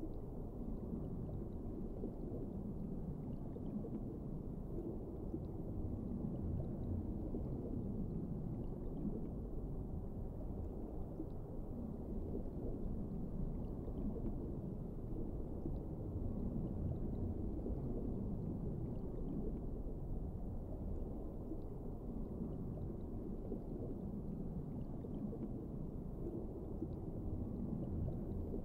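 Underwater ambience: a steady, muffled low rumble of water that swells and eases slowly.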